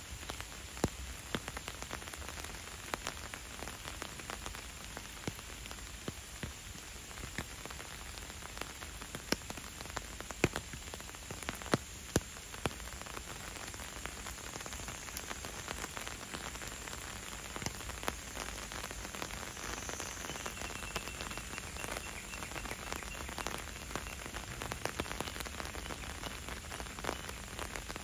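Steady rain falling, an even hiss with scattered individual drops ticking sharply and irregularly throughout.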